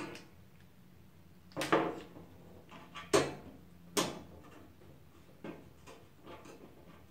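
Knocks and clicks of a computer case being handled during disassembly while its thumb screws are worked loose. There is a quick cluster of knocks about a second and a half in, then two sharp single knocks around three and four seconds in, then fainter ticks.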